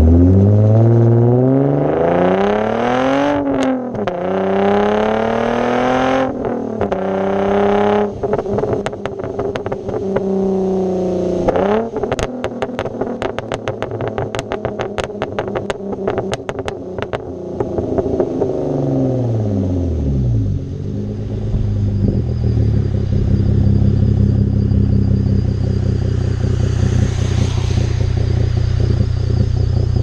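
Exhaust of a 2010 Hyundai Genesis Coupe's 3.8 V6 with muffler and resonator deleted (straight-piped behind the cats), heard right at the tips. It revs hard up through the gears with quick drops at each shift. Then it pops and crackles on and off the throttle for several seconds before the revs fall away, and it settles into a steady low idle for the last third.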